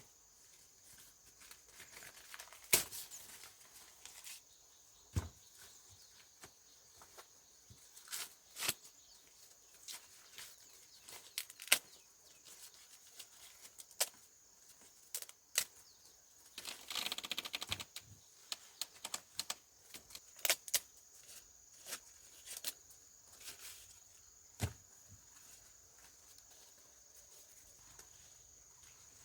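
Dry corn leaves and husks rustling and crackling, with scattered sharp snaps as ears of corn are picked, and a buzzy stretch of about a second and a half midway. A steady high-pitched drone runs underneath.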